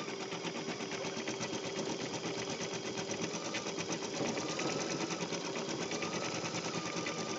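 Baby Lock Flare computerized embroidery machine running, its needle going up and down in a fast, even rhythm as it stitches the appliqué outline of a bear's head. A faint whine comes and goes over the stitching.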